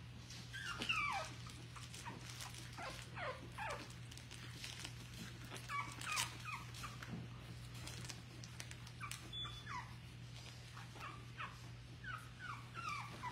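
A four-week-old puppy whimpering in short, high squeaks that slide downward, repeated every second or so, over a steady low hum. The puppy is fretting while she looks for a place to relieve herself.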